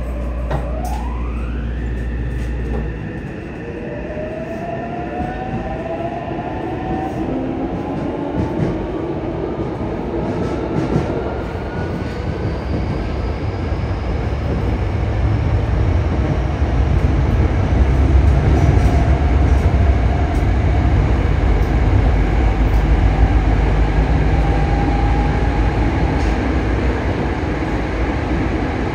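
Yokohama Municipal Subway 3000S train with Mitsubishi IGBT-VVVF traction control, heard from inside the car as it pulls away from a station. The inverter and traction-motor whine rises in pitch in several steps over the first twelve seconds or so. From about sixteen seconds in, the train runs on through the tunnel with a louder rumble of wheels and motors.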